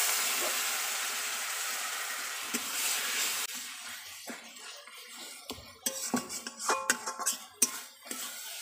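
Mutton and spice paste sizzling in a kadai. The sizzle is loudest at the start, fades slowly, and stops suddenly about three and a half seconds in. After that a metal spatula scrapes and knocks against the pan in a run of sharp strokes, busiest near the end.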